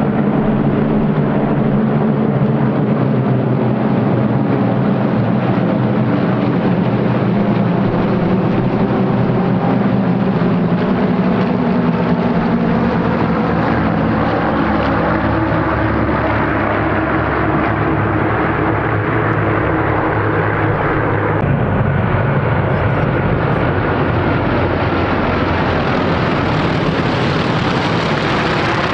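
Many single-engine propeller planes flying over in a mass formation: a loud, steady, layered drone of piston engines, with the engine notes slowly shifting in pitch as the formation passes.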